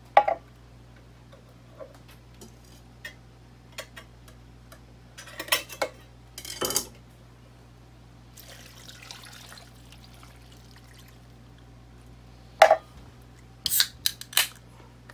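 Metal cans of stock being handled over a cast iron Dutch oven: a scatter of sharp clicks and clinks, with a short, soft pour of liquid into the loaded pot about halfway through.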